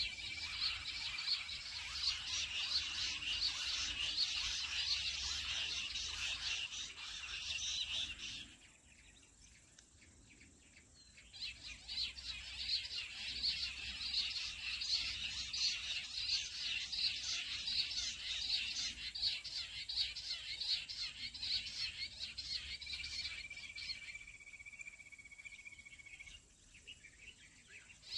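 Jungle bush quail calls: a dense, rapid chirping chorus. It breaks off about eight seconds in, starts again a few seconds later, and thins out near the end. A long thin high whistle sounds at the start and again near the end.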